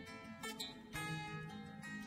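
Background music: a plucked string instrument, guitar-like, playing a new note about every half second.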